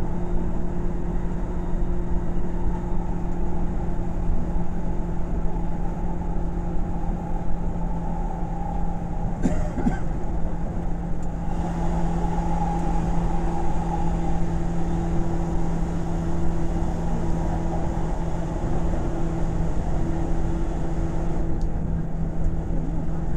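Seibu 2000 series electric train running at a steady pace between stations, heard on board: an even rumble of wheels on rail with a constant hum from the drive equipment. A single sharp clack comes about nine and a half seconds in.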